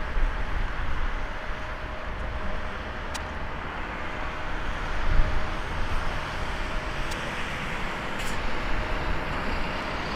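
Airbus A380-861's four Engine Alliance GP7200 turbofans on final approach: a steady low rumble with a faint steady tone, growing a little louder near the end as the jet comes closer.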